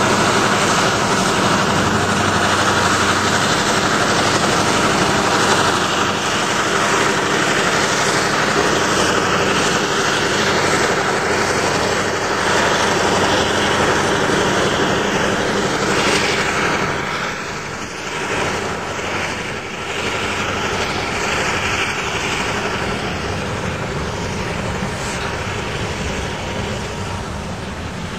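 Diesel locomotives working hard as they shove through deep snow drifts, a steady loud engine drone. About two-thirds of the way through it eases a little as the locomotives move on and the train's cars roll past.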